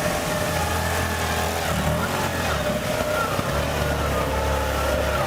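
Heavy machine's engine running, its low note shifting a couple of times.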